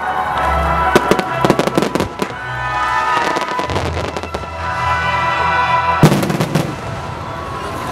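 Aerial firework shells bursting in quick succession, with crackling reports. A single louder boom comes about six seconds in.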